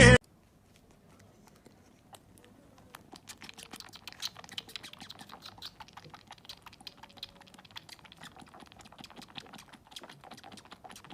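Music cuts off suddenly at the start. About two seconds later rapid, irregular light clicking and tapping begins and keeps on, like keys being typed on a keyboard.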